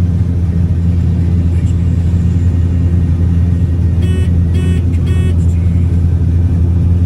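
Combine harvester running at a steady low drone. Three short electronic beeps sound in quick succession about four seconds in.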